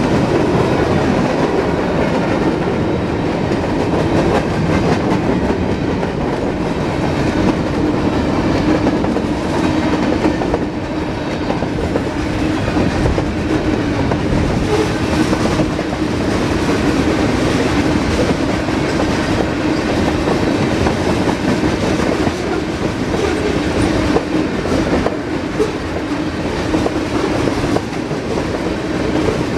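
Norfolk Southern manifest freight train rolling past, a steady rumble of the cars with a running clicking of steel wheels over the rail.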